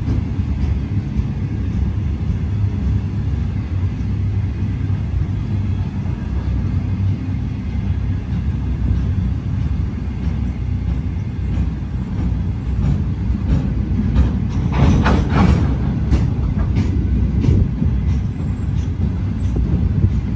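Freight train of empty flat wagons rolling past, a steady low rumble of steel wheels on rail. A louder burst of clatter about fifteen seconds in, and again near the end.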